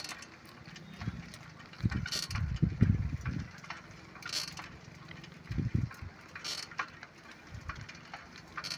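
Bicycle being ridden, heard close from its handlebar: irregular low rumbles and thumps, with a short crisp rattle about every two seconds.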